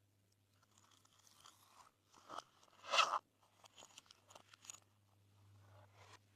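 Glossy slime being squished and pressed by hand, giving small wet pops and crackles, with the loudest pop about three seconds in.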